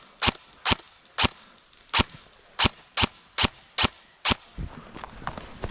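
Airsoft gun firing single shots in quick succession, about nine sharp cracks roughly half a second apart, with scuffling movement near the end.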